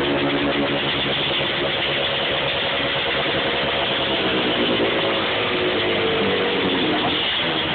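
Kawasaki KDX 125 two-stroke single-cylinder dirt bike engine running at a steady idle. Its revs rise a little and fall back in the second half.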